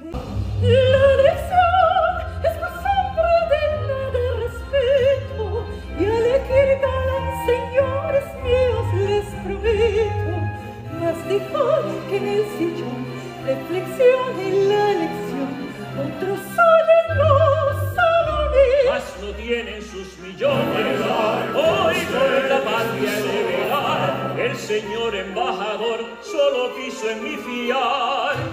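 Operetta singing with live instrumental accompaniment, a sung line moving up and down in pitch; about two-thirds of the way through the sound turns fuller and denser.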